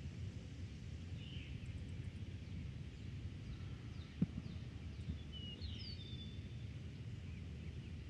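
Low, steady rumble of wind across an open field, with scattered short bird chirps, most of them in the second half. A single sharp click about halfway through is the loudest sound.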